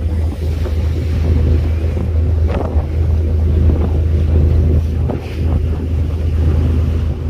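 A boat engine running steadily with a deep, even hum, with wind buffeting the microphone.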